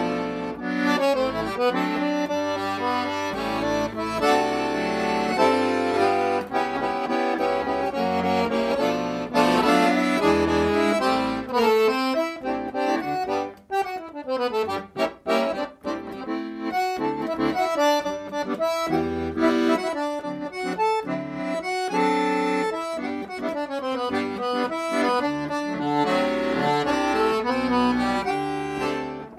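Background instrumental music with a quick, busy melody. It thins out and dips briefly twice around the middle.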